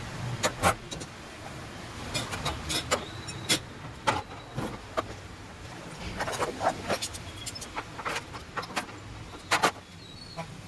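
Irregular sharp clicks and knocks of small metal parts and tools being handled, over a steady low background rumble.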